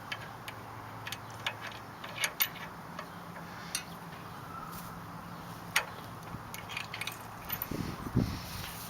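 Scattered sharp metal clicks and clinks as a rototiller's steel tine assembly is slid onto its shaft and pinned, the loudest about two and a half, four and six seconds in, over a faint steady hum.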